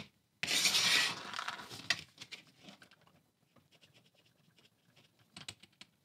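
A pencil eraser rubbed over the contact pads of a remote control's circuit board to clean oxidation off them: a scratchy rubbing, loudest for about a second near the start, then fading into faint light scrapes and ticks.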